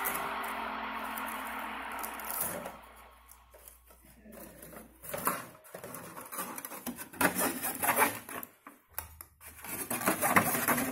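Handling of a gaming mouse and its braided cable: irregular rubbing, tapping and clicking of plastic, after a steady noise that fades out about two and a half seconds in.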